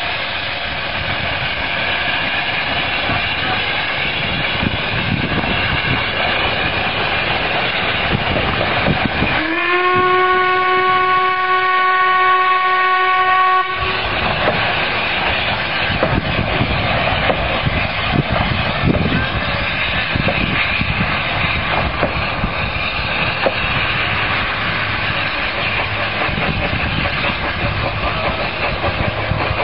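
Narrow-gauge steam train running past and pulling away, with its wheels and engine heard throughout. About ten seconds in, the locomotive sounds one long, steady steam whistle lasting about four seconds.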